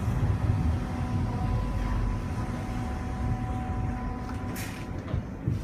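Wuppertal Schwebebahn suspension-railway car running: a steady low rumble with a faint thin electric whine, easing down in level as the car slows. A short hiss comes about four and a half seconds in.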